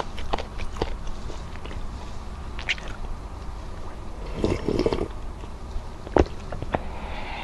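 Close-up mouth sounds of eating: a few wet chewing clicks, then about four seconds in a sip of chicken tinola broth lasting about a second. Two sharp mouth clicks follow.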